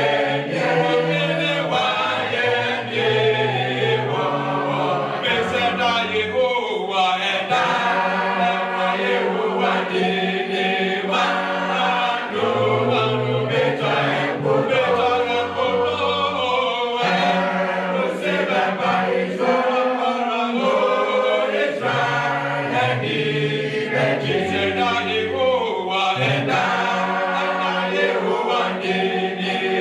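A choir singing a hymn a cappella in several parts, with low voices holding sustained notes under the melody.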